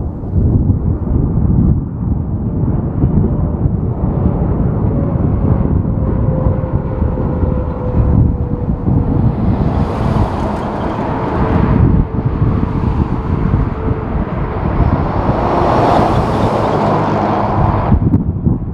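Jet airliner engines passing while strong wind buffets the microphone. A faint engine whine falls slowly in pitch, and the rushing jet noise swells over the second half, then cuts off suddenly near the end.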